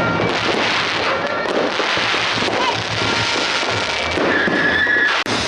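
Many fireworks and firecrackers going off at once, a dense crackling din of pops and bangs. A high whistle sounds for about a second near the end.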